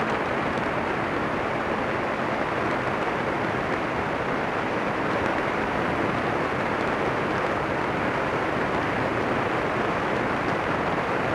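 Kolb ultralight aircraft in flight: a steady, unbroken rush of airflow over the aircraft-mounted camera's microphone, blended with engine noise.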